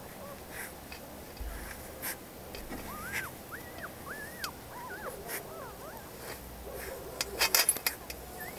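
Young puppies whimpering: a run of short, high, arching whines in the middle. Near the end, a burst of clicks and rustling is louder than the whimpers.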